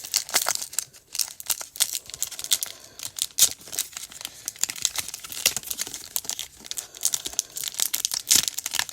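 Foil booster-pack wrapper crinkling as it is handled and torn open by hand, a dense, irregular run of sharp crackles.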